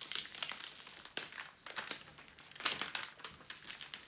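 Clear plastic protective film being peeled back off the sticky glue of a diamond painting canvas, crinkling and crackling unevenly, with the loudest crackle about two and a half seconds in.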